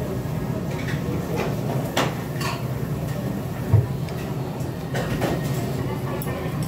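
Table eating sounds: metal chopsticks clicking several times against the earthenware pot and bowls, and a person taking a mouthful of soup with a low thump a little before the four-second mark. A steady low hum runs underneath.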